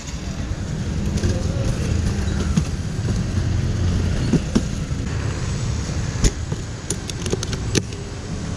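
Clicks and knocks of an aluminium motorcycle top box being handled, with its lid closed and its metal latches snapped shut in the second half, over a steady low rumble.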